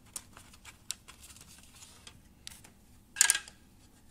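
Hands working wire leads and connectors inside a CX-20 drone's plastic shell: faint scattered clicks and rustles, with a brief louder scrape about three seconds in.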